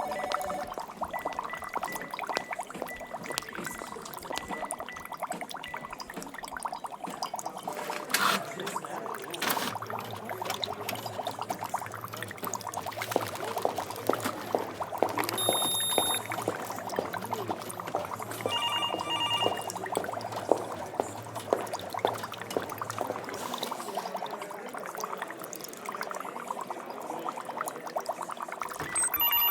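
Laboratory sound-effect ambience: liquid bubbling with a dense crackle of small ticks, joined by a steady low machine hum in the middle. Short runs of electronic beeps come about 19 seconds in and again at the end, and there is a single knock near 8 seconds.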